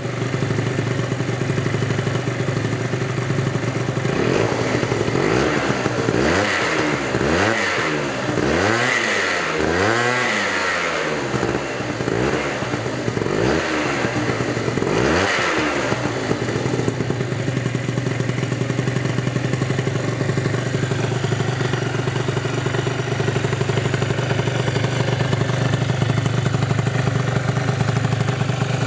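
49cc Minarelli two-stroke scooter engine (1E40QMB) breathing through a Leo Vince ZX expansion-chamber pipe, idling steadily. From about four seconds in it is revved in a series of quick throttle blips, each rising and falling in pitch, then from about sixteen seconds it settles back to a steady idle.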